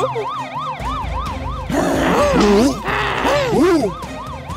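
A fast warbling siren-like sound effect, its pitch sweeping up and down about three times a second. After about a second and a half, background music and sliding cartoon squeals join in over it.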